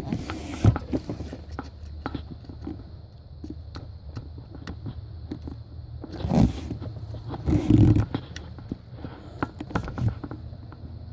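Hands handling the camshaft sensor's wiring harness and plastic connector in the engine bay: scattered clicks and scrapes, with louder rustling bursts about half a second in, around six and a half seconds and around eight seconds.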